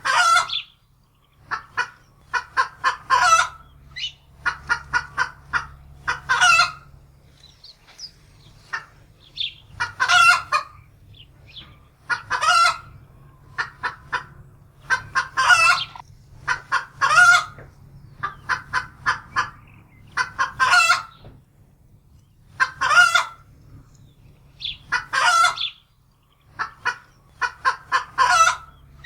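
Domestic hen cackling in alarm: runs of quick short clucks, each ending in a longer, louder squawk, repeating every two to three seconds.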